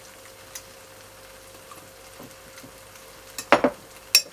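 Cooking sounds at a pot: a faint steady background, then near the end a short scrape followed by a sharp clink of kitchenware.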